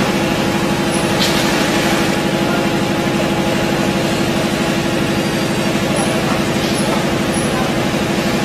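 Steady hum of a running electric machine motor, with constant low tones and a fast, even pulsing under it, as of an industrial sewing machine idling. A faint click about a second in.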